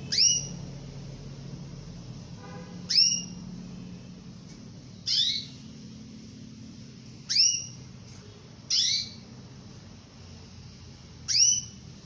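Female domestic canary calling: six short, high calls that each slide steeply downward, repeated every two to three seconds, two of them given as quick doubles. This is the call a hen canary uses to draw a male, played to coax a silent male into singing.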